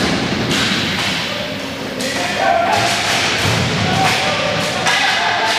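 Inline hockey play in an indoor rink: a run of sharp clacks and thuds from sticks, puck and boards about once a second, with faint shouts from players.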